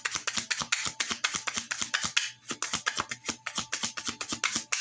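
A deck of tarot cards being shuffled by hand: a fast, dense patter of card clicks, pausing briefly about halfway through, then going on until it stops near the end.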